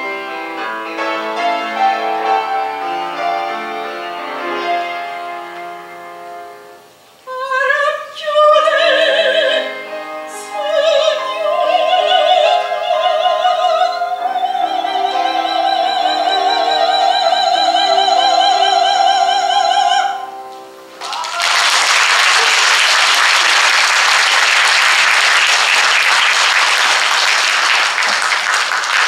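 A soprano with a Samick grand piano closes a Korean art song. The piano plays alone, then the soprano enters about a quarter of the way in and sings with wide vibrato, holding a long high final note that ends about two-thirds through. The audience then applauds steadily.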